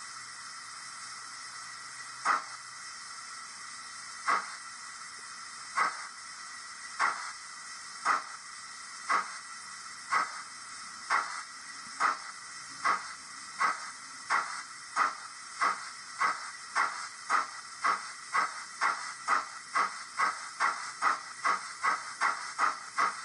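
Dapol Hawthorn Leslie model steam locomotive's DCC sound decoder playing steam exhaust chuffs over a steady hiss as it pulls away. The beats start slow, about two seconds apart, and speed up steadily to about three a second near the end.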